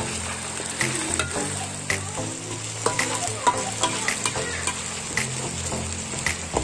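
Ground green chili paste sizzling as it fries in oil in a wok, while a metal spatula stirs it, scraping and clicking against the pan about once a second.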